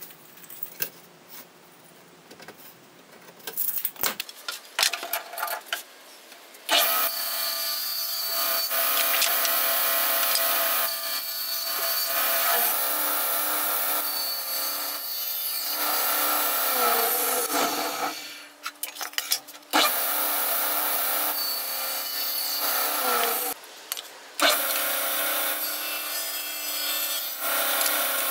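A few knocks as maple boards are handled, then a table saw starts and runs steadily, cutting maple. About halfway through it is switched off and winds down with a falling tone, then starts again, with one more short break near the end.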